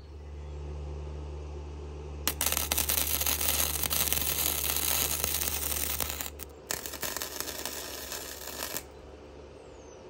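Wire-feed (MIG-style) welder arc crackling as it welds steel plate, in two runs: about four seconds, a short break, then about two seconds. A steady low hum sits under the first half.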